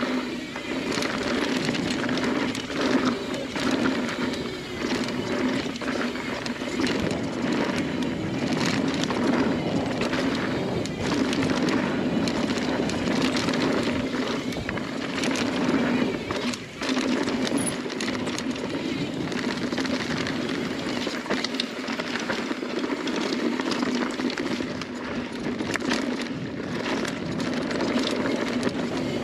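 Mountain bike riding fast down a dirt singletrack: steady tyre noise on the dirt with frequent clicks and knocks as the bike rattles over bumps, easing for a moment about two-thirds through.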